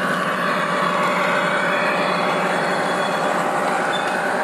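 Electric model trains running past close by: a steady noise of motors and wheels on the rails, with a faint whine.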